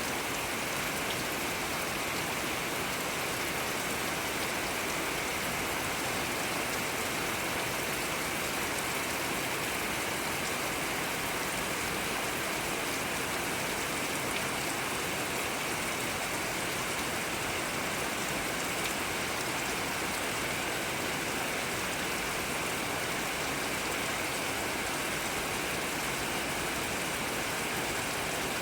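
Steady rain falling, an even hiss of many drops with no break or change.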